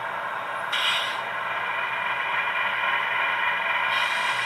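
Model GE ET44AC diesel locomotive with a LokSound sound decoder, playing its diesel engine running sound while straining against a pull meter during a drawbar pull test. The sound steps up about a second in.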